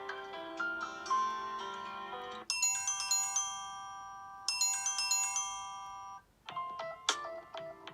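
Stock Samsung Galaxy J2 Prime ringtones playing one after another. One melody ends about two and a half seconds in, and a higher, brighter tune follows and repeats once. After a brief pause, a new melody begins.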